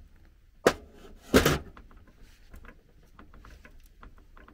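A sharp click, then a louder brief knock and scrape about a second and a half in, as a hose-sleeved metal tube is forced into rubber radiator hose on the motor's splined shaft; a few faint ticks of handling follow.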